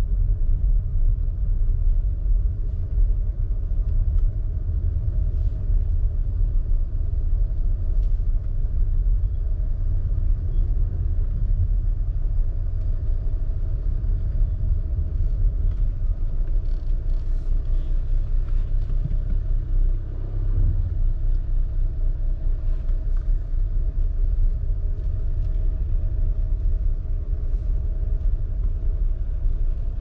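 Cabin sound of a 2018 Volvo XC90 D5, with its four-cylinder diesel engine and tyres making a steady low rumble as the car drives slowly. A few faint ticks and knocks come through, mostly about halfway through.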